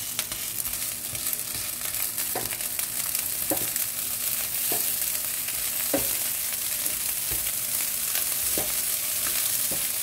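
Leftover rice and egg sizzling in a frying pan as a wooden spatula stirs and turns it, with a steady hiss and the spatula knocking against the pan about once a second.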